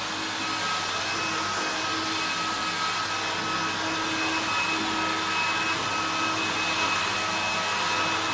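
1968 Hoover Convertible 1124 upright vacuum cleaner running steadily and loud: a constant whine from its motor and fan over an even rush of air.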